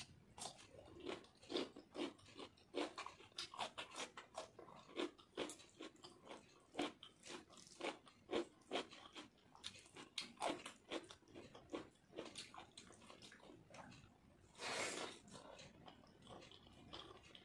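Close-up mouth sounds of a person crunching and chewing raw cucumber slices and mouthfuls of rice and dal, with short sharp crunches about twice a second. One longer, louder breathy sound about fifteen seconds in.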